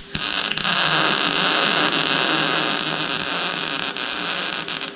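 Wire-feed welder's arc crackling and hissing steadily while a weld bead is laid along the joint of square steel tubing and a steel base plate, with a brief break in the arc right at the start.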